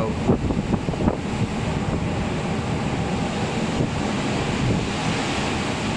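Strong wind buffeting the microphone over the steady rush of rough seas, with waves breaking and foaming along a cruise ship's hull in a storm.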